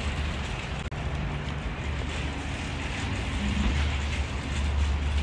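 Steady low rumble and hiss of outdoor street noise, with a brief drop in sound about a second in.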